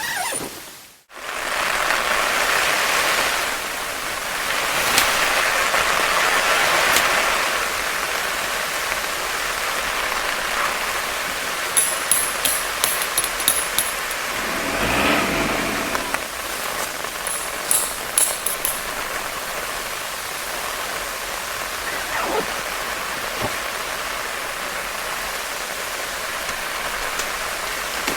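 Heavy rain falling steadily, a dense even hiss, with scattered sharp ticks of drops and a brief swelling whoosh about halfway through.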